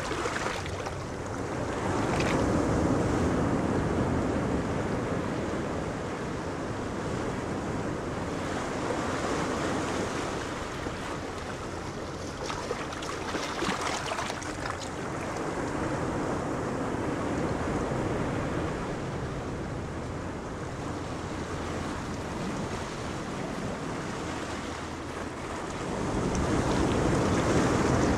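Wind gusting on the microphone over the wash of choppy sea, with a small fishing boat's engine and bow wash as a low hum underneath. It swells louder about two seconds in and again near the end.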